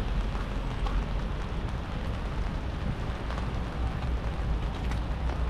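Rainy city street ambience: a steady hiss of rain and wet traffic with a low rumble underneath.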